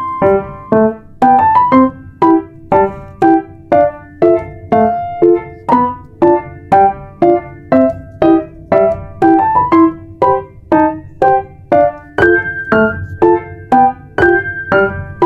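Background music: a keyboard melody of short, evenly paced notes, about two a second.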